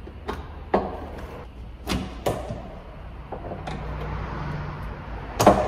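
Metal pliers clicking and knocking against a screw and the car's metal parts as the screw is turned in bit by bit: half a dozen sharp separate knocks, the loudest near the end, over a steady low hum.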